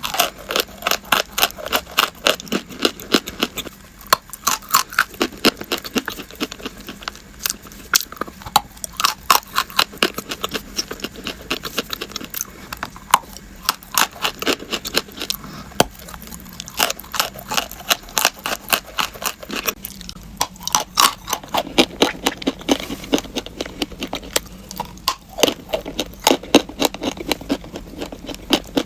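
Crunchy chalk being bitten and chewed: dense runs of sharp crackling crunches, with short pauses every few seconds.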